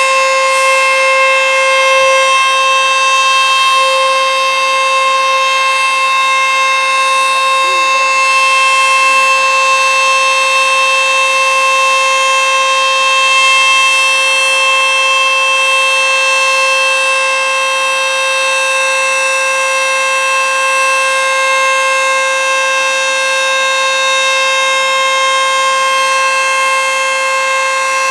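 ACA Screamer S-2 outdoor warning siren sounding a loud, steady tone that holds one pitch without rising or falling. This is the steady alert signal, sounded here as a siren test.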